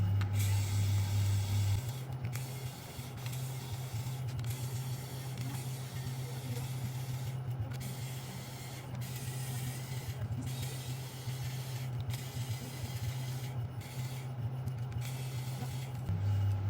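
A small electric motor hums steadily with a hiss over it. Its pitch steps up about two seconds in and drops back near the end.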